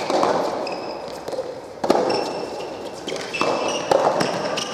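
Soft tennis rally: the rubber ball struck back and forth by rackets and bouncing on the court, a series of sharp hits about a second apart that echo around a large indoor hall, with short squeaks of shoes on the court between them.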